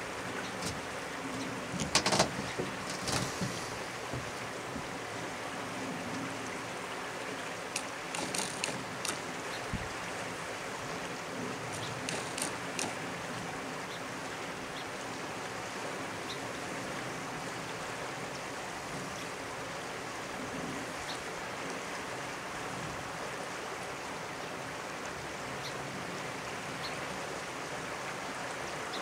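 River water flowing and rippling steadily, with a few short sharp sounds in the first half.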